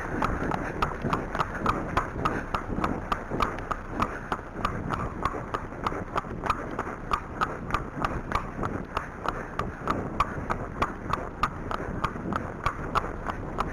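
Arabian horse's hooves striking a tarmac lane in a quick, steady rhythm of about four beats a second as he moves out at a brisk pace.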